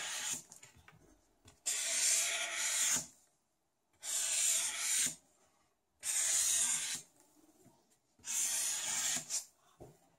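Felt-tip marker drawing lines on paper: five strokes of the tip rubbing across the sheet, each lasting about a second, coming roughly every two seconds.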